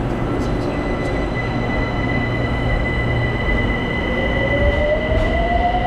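Electric metro train running with a steady rumble and a high steady tone. From about four seconds in, a motor whine rises in pitch as the train picks up speed.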